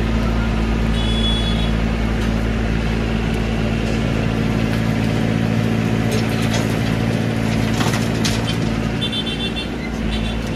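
Excavator's diesel engine running steadily under hydraulic load while it loads a tipper truck, with a few sharp knocks in the second half. A few short high beeps sound about a second in and again near the end.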